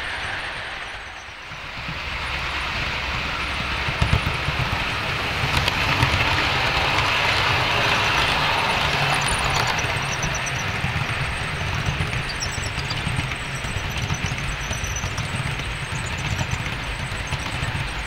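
Model Class 66 diesel locomotive and its container wagons running past on the layout's track: a steady motor hum and wheel rumble that dips briefly about a second in, then grows louder from about two seconds and holds.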